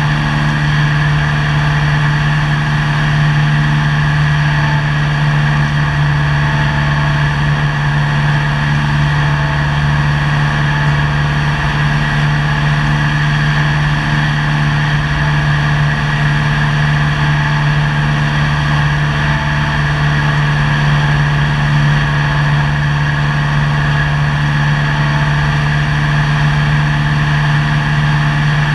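Cessna 172's piston engine and propeller running steadily in flight, a constant loud drone heard from inside the cabin.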